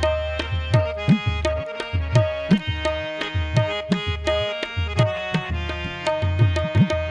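Harmonium playing a melody to a steady tabla beat, the low drum strokes bending in pitch, with no singing: the instrumental opening of a qawwali.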